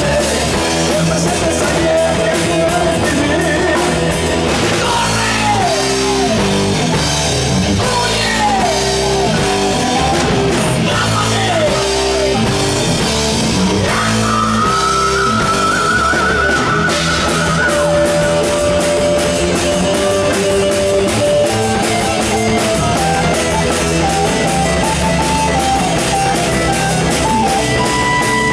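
Live hard rock band playing loud and without a break: electric guitar, bass, drum kit and keyboards. Lines slide down in pitch several times in the first half, and long notes are held later.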